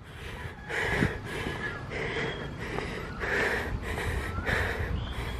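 Heavy breathing of a tired hiker climbing steep steps, one hard breath about every second.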